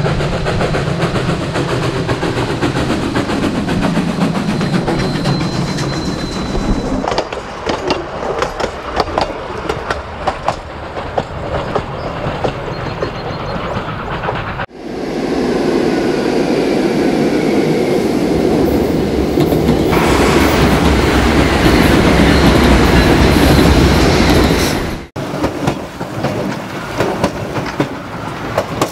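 Durango & Silverton narrow-gauge steam train running on its track, its wheels clicking over the rail joints. For about ten seconds in the middle there is a louder, steady rushing rumble that starts and stops abruptly.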